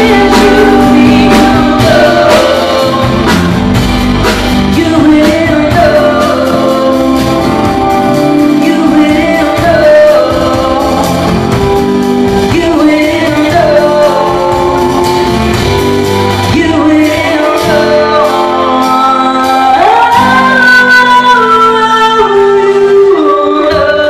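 Live band playing a rock song: a woman singing lead over strummed acoustic guitars, electric guitar, bass and drum kit, amplified through a PA.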